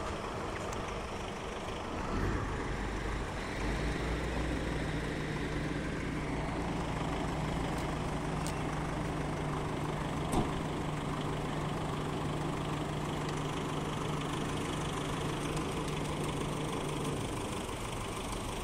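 Road vehicle engines idling steadily, a lorry among them, with a low steady hum.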